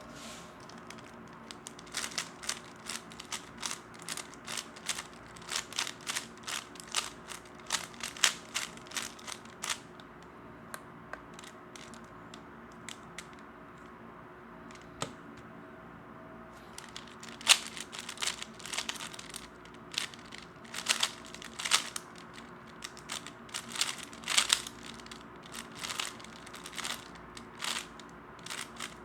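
3x3 Rubik's Cube being turned fast in speedsolving, a rapid, irregular run of plastic clicks and clacks. The turning thins to a few scattered clicks for several seconds in the middle, then picks up densely again.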